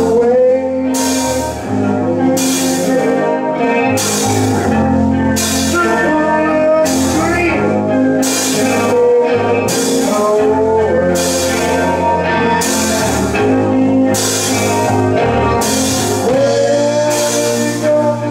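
Live rock band playing a slow, steady groove: electric guitar, bass and drum kit, with a cymbal about once a second, and lead vocals gliding in and out over the top.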